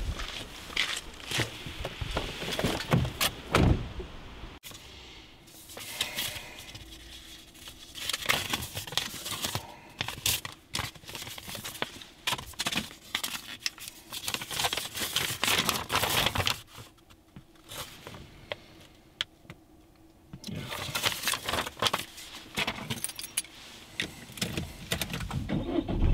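Handling sounds inside a car: paper being unfolded and rustled, and a bunch of keys jangling. These come as clusters of short clicks and rustles with quieter gaps between them.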